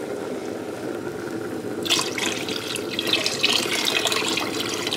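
Water pouring into a cooking pot for soup. It gets louder and splashier about two seconds in.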